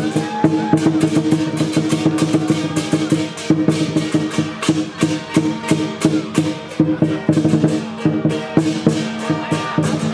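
Lion dance percussion ensemble playing: a big lion dance drum beaten in a fast, dense rhythm with clashing cymbals and a ringing gong.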